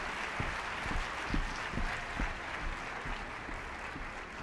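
Audience applause, slowly dying away. Several dull thumps about every half second in the first half are footsteps on the stage floor.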